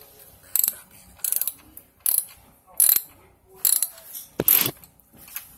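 A hand ratchet clicking in about six short bursts, one every three-quarters of a second or so, as it tightens the steel band clamp on a rubber coupling joining PVC pipe to an old drain pipe.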